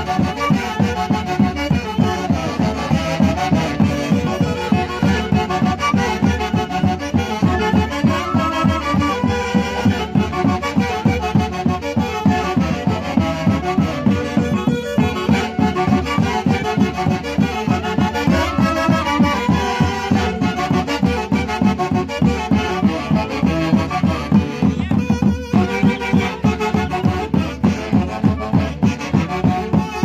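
Brass band with drums playing traditional Andean music: wind instruments carrying the melody together over bass drums and snare keeping a steady, regular beat.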